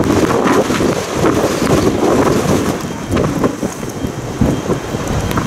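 Strasburg Rail Road steam locomotive working past at close range: a loud, rough, continuous rush of exhaust and steam with irregular low surges, mixed with wind buffeting the microphone in a snowstorm.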